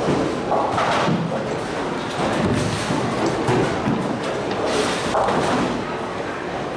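Bowling alley noise: balls rolling down the lanes and pins crashing on several lanes at once, with repeated thuds over a steady din.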